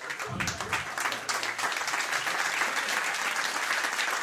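Audience applauding and laughing, a dense, steady patter of clapping that runs through the whole stretch.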